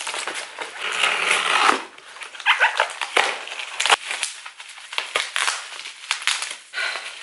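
Black plastic mailer bag crinkling and rustling as it is pulled and worked at by hand, with irregular sharp clicks and crackles; the mailer is hard to open.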